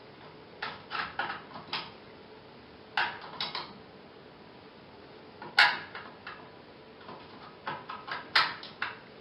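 Sharp plastic clicks in quick clusters as the front-panel power switch and buttons of an old Samsung 14-inch CRT television are pressed again and again while the set will not come on. The loudest, sharpest click falls a little past halfway.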